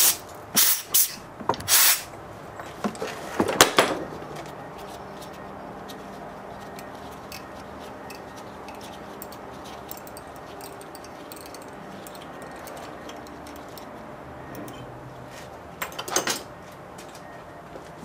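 Compressed-air blow gun giving a few short blasts, about a second in, near two seconds and near three and a half seconds, clearing chips out of a freshly tapped 10-32 hole in a steel plate. Then a faint steady background, with two more short bursts near the end.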